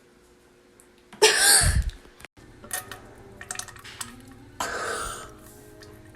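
A girl's loud burp about a second in, lasting under a second. A softer throaty sound follows near the end.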